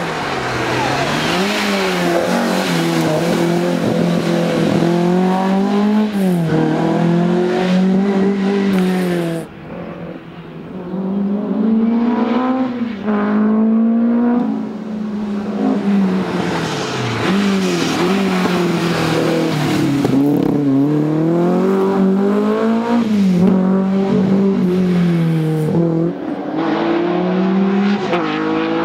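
Ford Escort Mk1 rally car's engine at full throttle, its pitch climbing and dropping again and again as it shifts through the gears on a stage. There is a brief lull about nine to ten seconds in.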